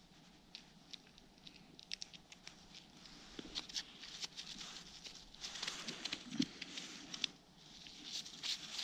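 Faint scattered taps and scratches of handling on crusted snow: a freshly caught grayling flopping on the snow and fingers working a small ice-fishing jig while baiting it with a fish eye. The ticks come irregularly and grow a little busier in the second half.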